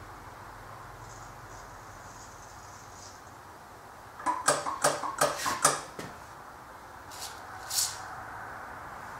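Aerosol can of spray lubricant hissing in two short bursts near the end as it oils the parts of a hit-and-miss engine. Before that, a quick run of about six sharp clicks from parts being worked by hand on the engine.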